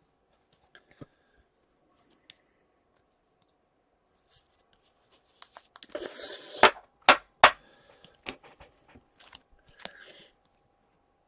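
Hockey trading cards being handled on a table: a brief rustle about six seconds in, then three sharp clicks in quick succession and a few lighter ticks.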